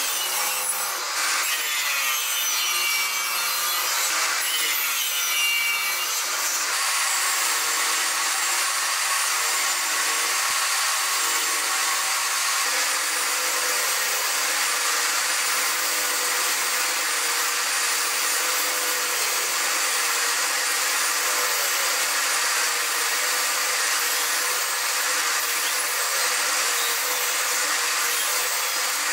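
Table saw running and cutting into wooden workpieces for joinery. For about the first six seconds the whine rises and falls as the blade works through the wood; after that the saw runs with a steady high whine.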